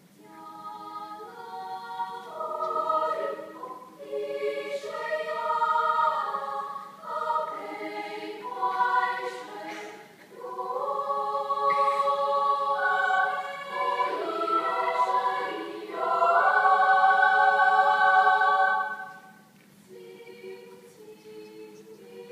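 School choir singing a choral song in several parts, phrases rising and falling in loudness. The loudest moment is a held chord a little over two-thirds through, after which the singing drops to a soft passage near the end.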